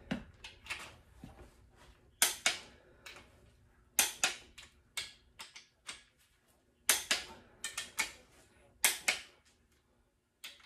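Click-type torque wrench on the main bearing cap bolts of a Ford 351 Cleveland block: sharp metallic clicks, often in pairs, every second or two, as each bolt is pulled up to its 110 ft-lb setting.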